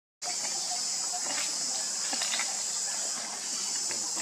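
Steady, high-pitched chorus of insects. Just after it cuts in from a brief silence, a few faint rustles follow.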